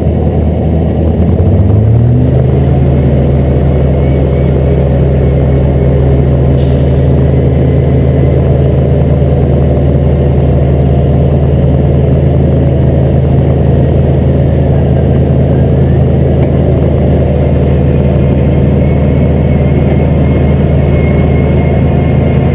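Heavy truck engine revving up over the first couple of seconds and then held at a steady high speed under load, as it powers a winch recovery pull of a stuck bus. A faint steady high whine sits above the engine.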